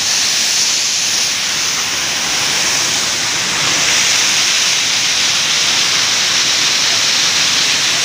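Waterfall's water rushing, a loud, steady hiss.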